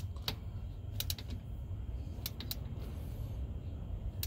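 Ratchet wrench clicking in short runs as it tightens the nut on the AC compressor's hose fitting, a few sharp clicks with pauses between strokes, over a low steady rumble.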